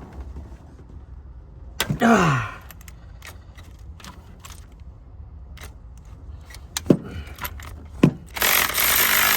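Work on the alternator's bottom bolt with an electric angle ratchet: a sharp metallic clank with a short falling ring about two seconds in, a few clicks and knocks, then the ratchet's motor running steadily near the end as it spins the loosened bolt.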